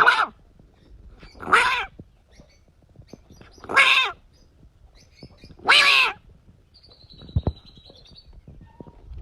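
An animal calling four times, each a short, loud, pitched cry that bends down at its end, about two seconds apart. A faint high thin whistle follows near the end.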